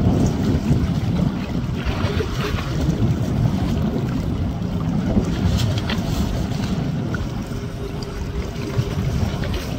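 Wind buffeting the microphone in an uneven, gusty low rumble, with a faint steady hum joining for a couple of seconds near the end.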